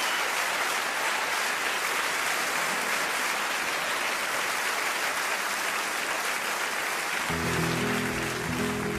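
Concert audience applauding steadily. About seven seconds in, the applause gives way to a nylon-string flamenco guitar starting to play low plucked notes.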